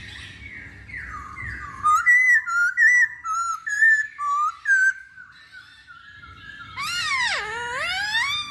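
Chinese hwamei singing: a quick run of short, clear whistled notes, then a long swooping whistle that dips low and climbs again near the end.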